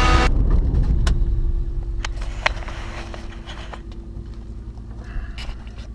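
Tecnam P92 Echo ultralight's engine and propeller running at low power, heard from inside the cockpit as a low rumble with a steady hum, fading away. A few sharp clicks come in the first three seconds.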